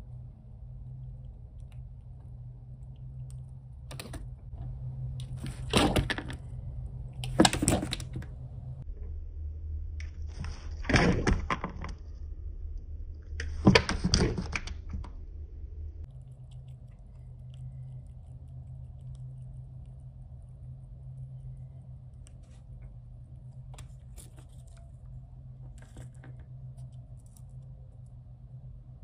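Animal paws knocking and scrabbling against a window pane and frame: four loud, sharp knocks in the first half, the loudest about fourteen seconds in, with a few lighter taps before and after, over a steady low hum.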